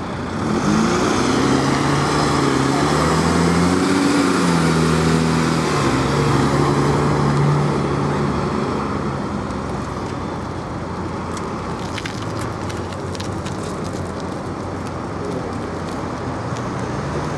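MAN fire engine's diesel engine pulling away under load, its pitch rising and falling through the gears, then easing off as the truck drives away amid traffic noise.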